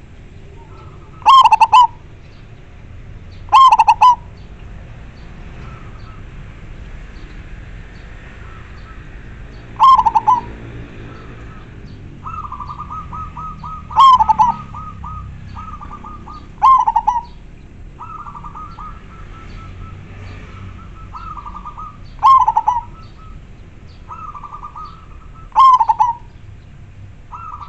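Zebra dove (perkutut) cooing: seven loud, short calls spaced a few seconds apart, with softer rapid trilled cooing notes running between them through the second half.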